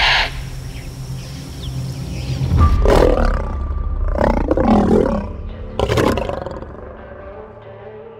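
A pair of mating lions growling and snarling in three loud bursts, the snarls that come as lions finish mating. Background music underneath fades out near the end.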